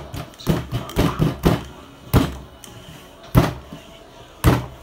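Irregular dull thuds and knocks on a tabletop as pizza dough is pounded and rolled with a wooden rolling pin, the heaviest blows in the second half.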